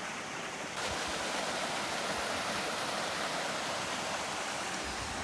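Steady rushing of flowing water, an even hiss with no rhythm, growing a little louder just under a second in.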